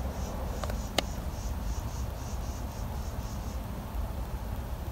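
A plastic button on a handheld OBD-II scan tool clicks once, sharply, about a second in, with a fainter click just before it. Under it is a low rumble and a faint high-pitched pulsing, about four pulses a second, that stops past the middle.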